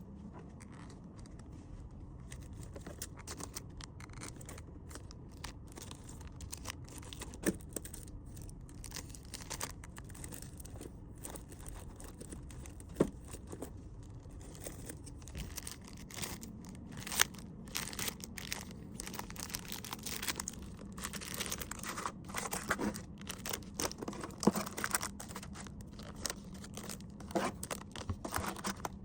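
Plastic packaging crinkling and rustling as small gift items are handled and packed, in irregular bursts with a few sharper taps, busier in the second half.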